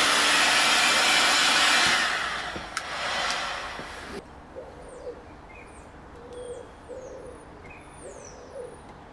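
Electric heat gun blowing hot air, warming the rubber carburettor intake boots so they soften and don't split when the carbs go back on; it runs steadily, fades and cuts off about four seconds in. Afterwards a dove cooing and small birds chirping faintly.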